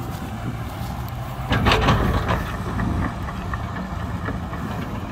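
Heavy diesel engine of earthmoving machinery running steadily, with a louder clatter of knocks and rattles about a second and a half in.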